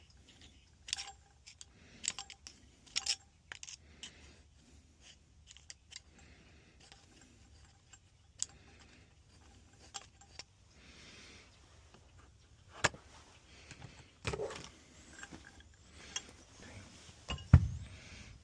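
Metal hand tools and gas pipe fittings being handled: scattered clicks, taps and light scraping, with a louder knock near the end.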